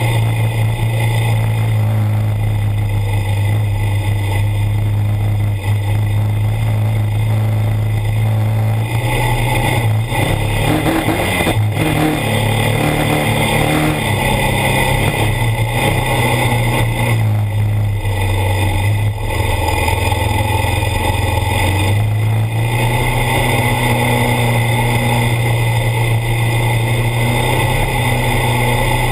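ATV engine running steadily under throttle as the quad is ridden across sand. Its note dips lower around ten seconds in and again between about eighteen and twenty-two seconds in, then picks back up.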